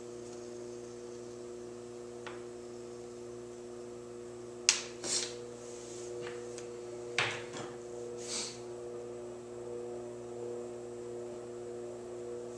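Electric potter's wheel motor humming steadily, turned down to a slow speed for the final touches on a stoneware mug. A handful of short scraping swishes from work on the spinning clay come between about five and eight and a half seconds in.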